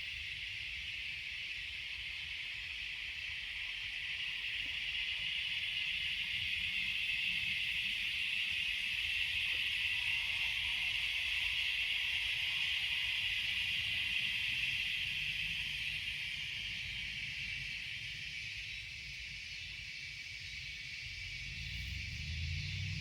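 A steady, high-pitched insect chorus droning in the garden, swelling louder for several seconds and then easing off, over a low rumble of wind and handling on the microphone.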